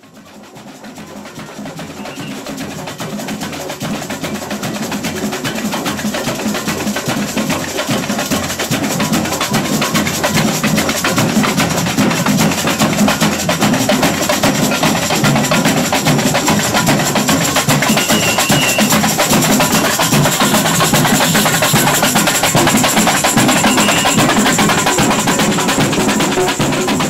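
Carnival street percussion band drumming, with snare and bass drums and a sharp wood-block-like click. It fades in from silence over the first several seconds, then holds steady.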